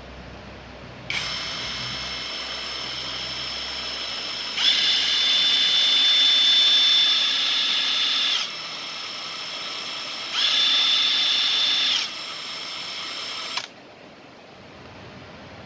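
Ingco 20V brushless cordless impact wrench running free with a steady high motor whine. It starts about a second in and stops near the end. Twice it gets louder, with an extra shrill tone on top.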